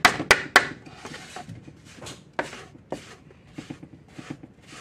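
A mixing utensil knocking sharply against a large wooden bowl three times in quick succession, then softer scraping strokes about twice a second as it stirs through crumbly biscuit dough.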